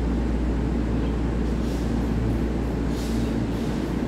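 Taiwan Railway EMU3000 electric multiple unit beside the platform: a steady low rumble and hum of the train's running equipment, with two brief hissing sounds about two and three seconds in.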